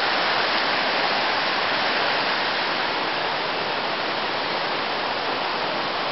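Fast-running river rushing over rocks, a steady loud rush of water that eases off slightly partway through.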